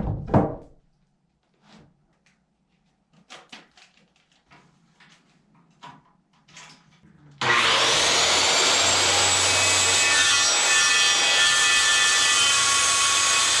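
A few light knocks and handling clicks, then about seven seconds in an electric power saw starts with a rising whine and runs steadily, definitely loud, cutting a maple board.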